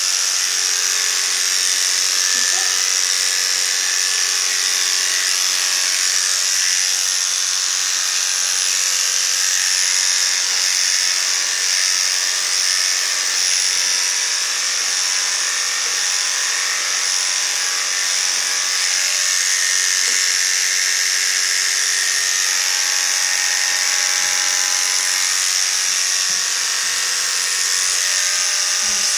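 Electric pet clippers running steadily while trimming a Yorkshire Terrier's coat: a loud, even, high-pitched buzz that never changes.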